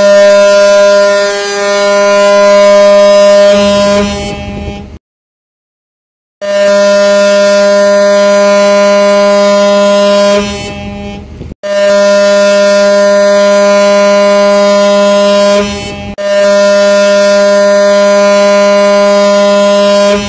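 Ship's whistle on the cargo ship Kuljak Arrow sounding four long blasts of about four seconds each, with short pauses between. Each blast is a deep, steady tone rich in overtones.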